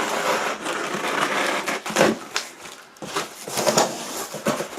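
Cardboard shipping box being opened and its packing handled: irregular rustling and crinkling with several sharp crackles.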